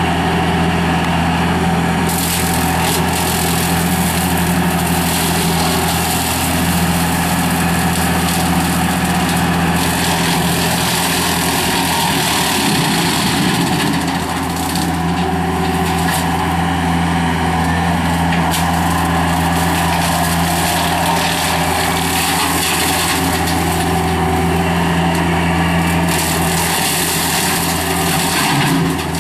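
Gehl 5640 skid steer's 84-horsepower turbocharged engine running steadily, driving a CID Xtreme 60-inch three-blade brush cutter. From about two seconds in until near the end a rough hiss and crackle rides over the engine drone as the cutter goes through brush, and the engine pitch sags briefly midway under the load.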